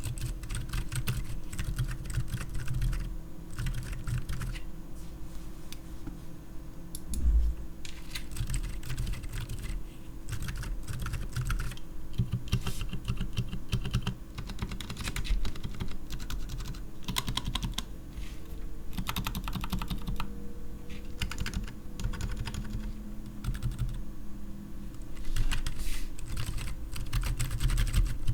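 Typing on a Keycool KC84 mechanical keyboard with stock, unlubed Outemu Silent Forest silent tactile switches, PBT keycaps, lubed stabilizers and 5mm case foam: rapid keystrokes in bursts with short pauses. A single heavier thump comes about seven seconds in.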